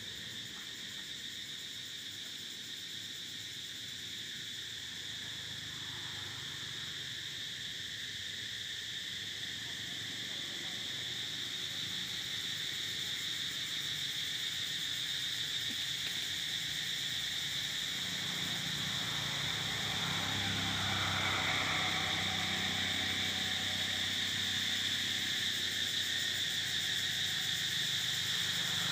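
Insects droning in a steady high-pitched chorus that grows gradually louder, with a faint low hum joining about two-thirds of the way in.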